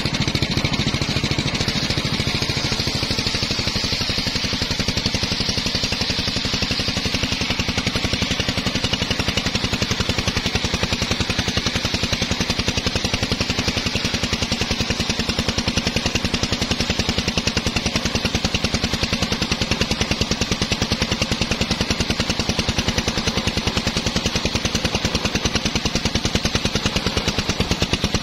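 Engine-driven homemade circular saw bench ripping a teak log lengthwise: the engine runs steadily under load with a fast even pulse, while the blade cutting the wood adds a steady high hiss, strongest in the first several seconds.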